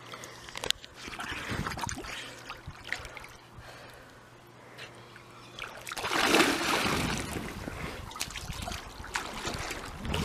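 Pool water splashing and sloshing as swimmers move through it, with one louder splash about six seconds in as a swimmer dives head-first under the surface.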